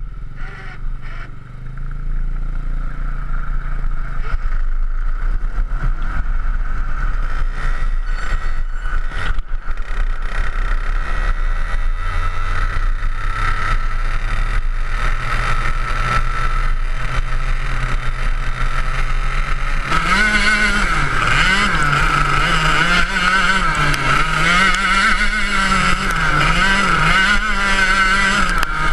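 Go-kart engine running as the kart drives on an ice track, heard from on board. About two-thirds of the way in, the sound grows louder and brighter, and its pitch rises and falls repeatedly with the throttle.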